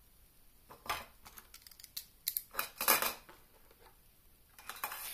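Small modelling tools (side cutters, hobby knife, tweezers, sanding stick) rattling and clinking against a metal tin as they are handled and set into it: a scatter of short clinks, the loudest cluster about three seconds in.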